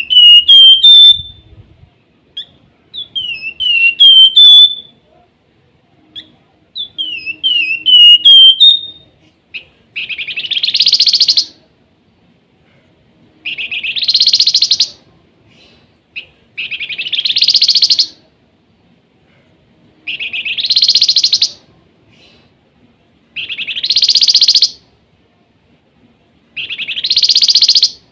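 Flamboyan (wergan jawa) songbird calling loudly. First come three short whistled phrases of chirping notes that dip and then rise. Then comes a run of six harsh buzzing trills, each about a second and a half long, repeated roughly every three and a half seconds.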